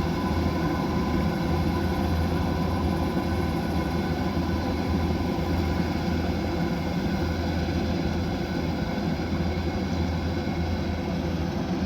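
Kubota DC108X combine harvester running steadily: a constant engine drone with steady higher hums over it.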